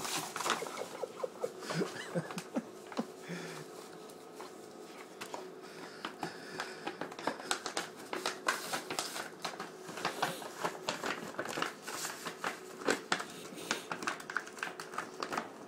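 Brown paper bag being chewed and torn by a Great Dane puppy: irregular rustling and crinkling of paper, with a quieter lull a few seconds in.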